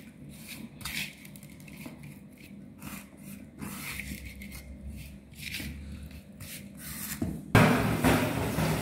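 Hand rubbing spice-coated small fish in a pan: soft, irregular rubbing and scraping. Near the end a much louder rushing noise starts suddenly.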